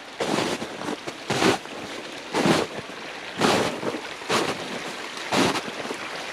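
Footsteps at a steady walking pace, about one a second, over the steady rush of floodwater running down a trail.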